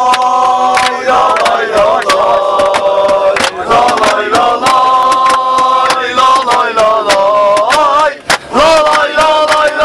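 A crowd of male voices chanting a football song together in long held notes, with loud sharp beats running through it and a brief break near the end.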